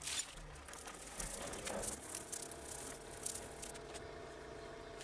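Fingers rubbing a sheet of gold leaf onto a helmet shell, the backing paper giving a faint, irregular papery rustle and scratch that dies away near the end. A faint steady hum runs underneath in the second half.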